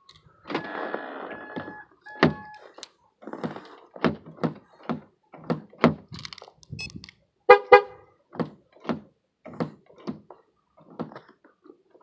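A few short electronic beeps from a 2005 Honda Odyssey minivan, answering its key-fob button. Then a run of short knocks, about two a second, with two louder knocks about halfway through.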